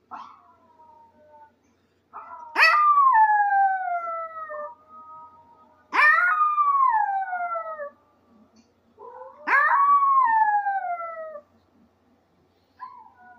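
Maltese dog howling: three long howls, each rising sharply and then sliding down in pitch for about two seconds. Fainter, shorter howls come at the start and near the end.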